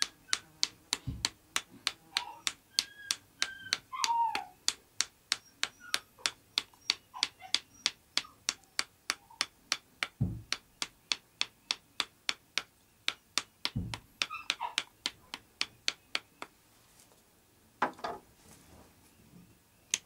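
Wooden knife handle tapping steadily on a green willow stick, about three sharp taps a second, knocking the bark loose so it can be slipped off to make a willow whistle. A few duller thuds fall among the taps, and the tapping stops near the end.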